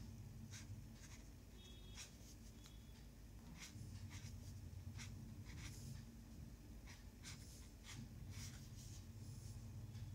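Brush pen tip stroking across paper as letters are written: a string of short, faint scratchy strokes at an uneven pace.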